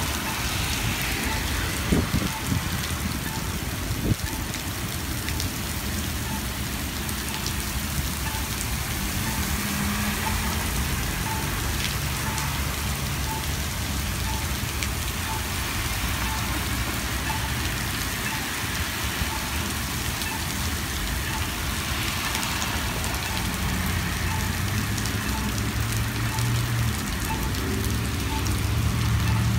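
Heavy rain pouring steadily onto wet pavement and street. A faint short beep repeats about once a second, and two brief knocks come in the first few seconds.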